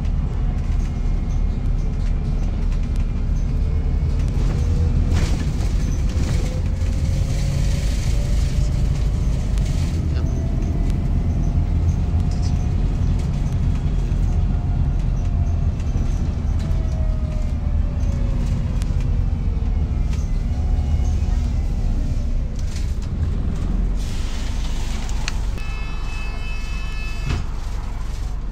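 Inside a Volvo B5TL Wright Gemini 3 double-decker bus on the move: the diesel drivetrain runs with a steady low rumble and a whine that climbs in pitch and then falls away over about fifteen seconds as the bus speeds up and slows, while the body and fittings rattle and knock. Near the end a short electronic beep sounds.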